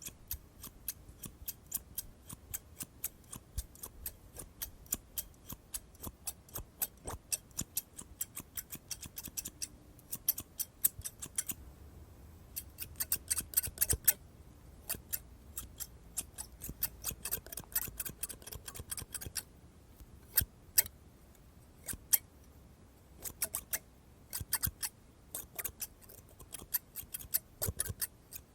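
Scissors snipping over and over in quick runs of short, sharp clicks, with brief pauses between runs.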